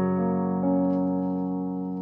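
Background piano music: slow, sustained chords with a couple of soft note changes.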